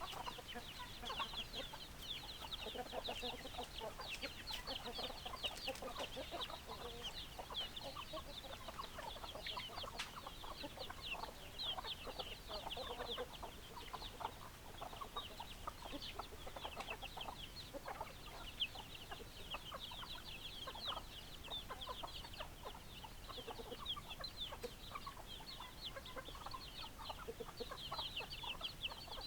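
Chickens clucking, over an unbroken chorus of many short, high-pitched peeping calls.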